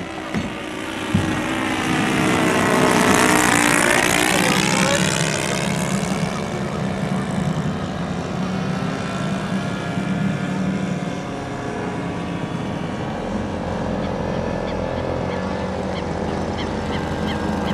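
Radio-controlled twin-engine model seaplane buzzing past over the water. It swells to its loudest about three seconds in as it passes close, then carries on as a steady drone.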